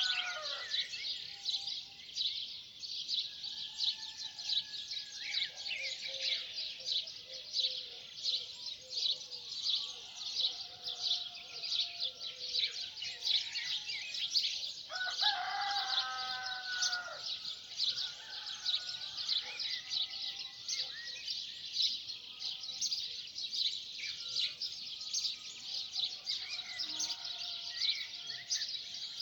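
Dense dawn chorus of small birds chirping without pause, with a rooster crowing once about halfway through and other softer bird calls scattered under it.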